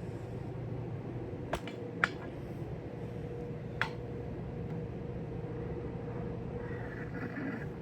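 Steady background hum with a faint constant tone, broken by three short, sharp clicks of small hard objects, about one and a half, two and four seconds in; the middle one is the loudest.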